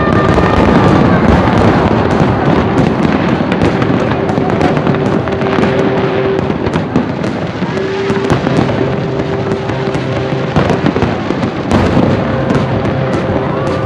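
Aerial firework shells bursting and crackling in a fireworks display: a loud, continuous dense crackle of pops and bangs.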